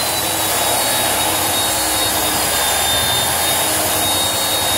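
Handheld belt sander running steadily while pressed on a hardwood panel of padauk and Peruvian walnut, coarse 50-grit belt rasping the wood, with a steady high whine from the motor and belt.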